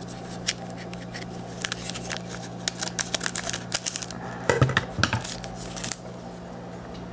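Scissors snipping open a foil trading-card pack, the foil wrapper crackling and crinkling with many sharp clicks as it is cut and pulled apart. A few louder handling knocks come about four and a half seconds in as the wrapper is peeled back from the cards.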